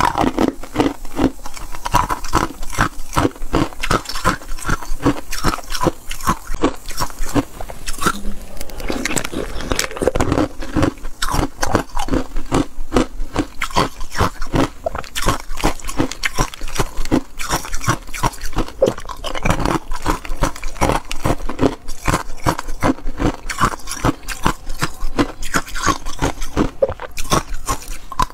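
Ice being bitten and chewed up close: a rapid, unbroken run of crisp crunches, several a second.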